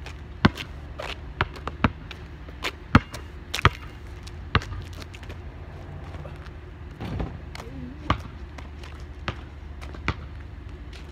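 A basketball bouncing on asphalt: a quick run of sharp dribbling bounces in the first five seconds, then a softer, longer knock about seven seconds in and a few spaced bounces after. A steady low rumble runs underneath.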